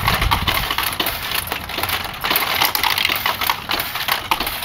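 Vintage pachinko machine being played: small steel balls launched and clattering down through the pins in a dense, continuous run of metallic clicks.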